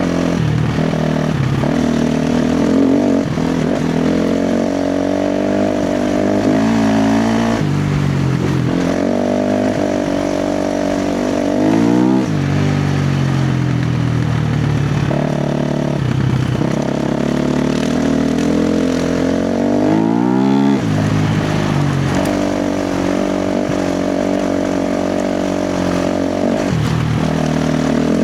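KTM 350 XC-F's single-cylinder four-stroke engine revving hard and constantly changing pitch with the throttle, climbing sharply twice and then dropping off as it is ridden aggressively off-road.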